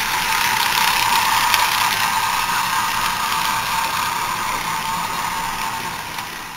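Toy train's small motor and gears whirring steadily as it runs round its track, growing fainter near the end.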